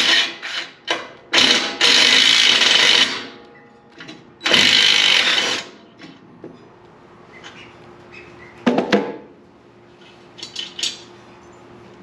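A socket being run on a sawmill bolt: a quick string of clicks, then two loud rasping bursts of about a second and a half each, followed by a few sharp metal clinks.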